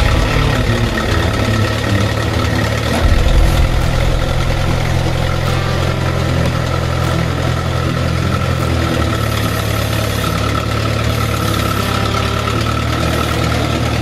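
Front-loader tractor's engine running steadily under light load as it slowly pushes a rolling truck chassis toward a trailer.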